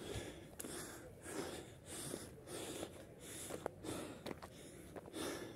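A hiker breathing hard and fast, a puff of breath about every half second, from the exertion of climbing a steep slope on foot. A few footsteps sound between the breaths.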